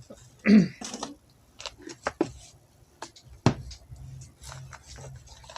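Hands handling small plastic packaging and tool-kit parts: scattered clicks and rustles, with a sharper click about three and a half seconds in. A short voiced hum comes about half a second in.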